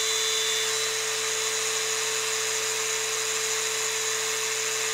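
DeWalt DCG413N 18V brushless cordless angle grinder running free with no load at full speed, a steady even whine. The disc is turning at about 7,400 RPM, short of the grinder's rated 9,000.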